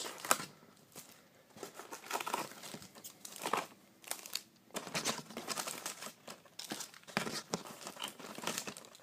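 Wrapped 2014 Bowman Chrome baseball card packs crinkling and rustling as they are pulled out of the cardboard hobby box one after another, in irregular crackles.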